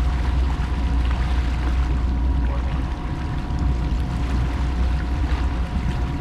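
Motorboat engine running steadily at trolling speed: a constant low rumble with water and hull noise, and a faint steady high whine above it.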